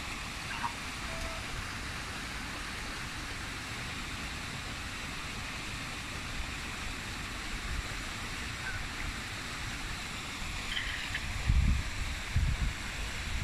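Steady rushing of a shallow stream's running water, with a few low rumbles near the end.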